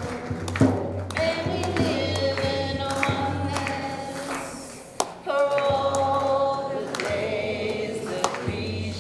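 Voices singing together in long held notes over a steady low hum, with sharp percussive taps scattered through it and a short break about five seconds in.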